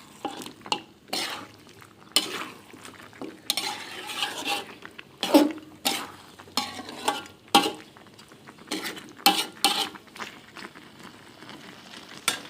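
A spoon stirring chicken curry in a cooking pot, scraping and knocking against the pot at an irregular pace, with a faint sizzle under it.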